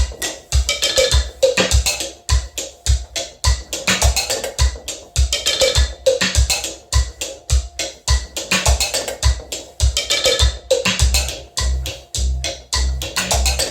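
Mechanical acoustic beat sequencer playing a fast percussion loop of wooden-sounding knocks, sharp clicks and deep thumps, the pattern repeating about every two and a half seconds. Near the end the deep thumps become longer and fuller.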